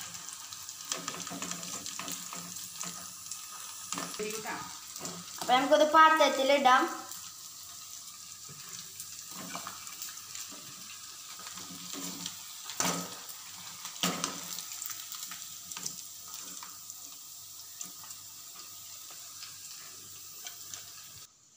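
Chicken 65 deep-frying in hot oil, a steady sizzle, with a few sharp knocks of a perforated slotted spoon against the pan and plate as the fried pieces are lifted out.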